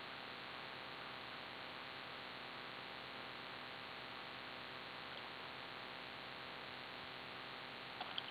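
Faint steady background hiss of outdoor ambience, with a couple of small clicks near the end.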